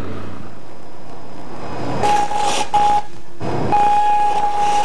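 Polyimide-insulated aircraft wiring arcing and burning in a test rig. A hiss, then from about two seconds in a steady high-pitched electrical buzz over a fizzing, sparkler-like hiss. It breaks off briefly twice and comes back.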